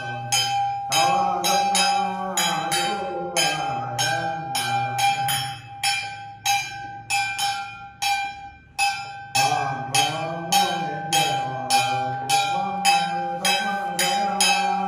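A small ritual bell struck in a steady beat, about two strokes a second, with a man's sung ritual chant over it. The chant pauses for a few seconds in the middle while the bell keeps its beat.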